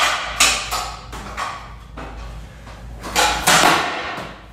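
Stunt scooter banging and clattering on a tiled floor: a few sharp knocks in the first second and a longer rattling clatter a little past three seconds in.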